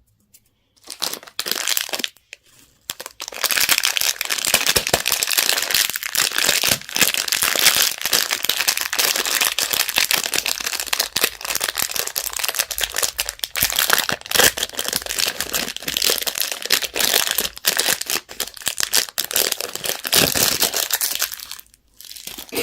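Candy or toy packaging wrapper being crinkled as it is handled and unwrapped. The crinkling is dense and continuous, starting about a second in and stopping shortly before the end.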